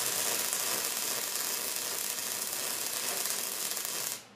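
MIG welding arc crackling and sizzling steadily as a bead is laid, stopping suddenly near the end when the trigger is released.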